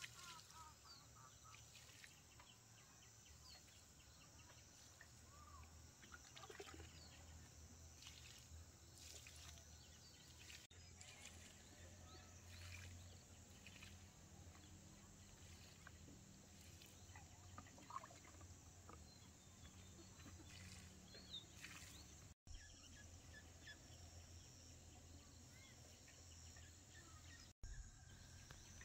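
Faint outdoor rural ambience: a steady low hum and background hiss, with scattered short bird chirps. The sound cuts out briefly twice near the end.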